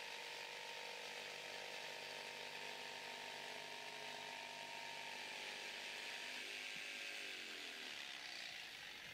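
Mafell P1CC jigsaw with a Q-Nex blade cutting 25 mm MDF at a 45-degree bevel: the motor runs at a steady pitch under the hiss of the cut. About six and a half seconds in the motor's pitch falls steadily as the saw winds down.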